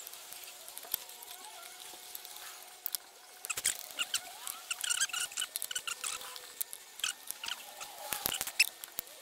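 Small clicks, taps and scratchy rattles of a plastic winch control box and its wiring being handled and fitted, with the clicking getting busier about halfway through.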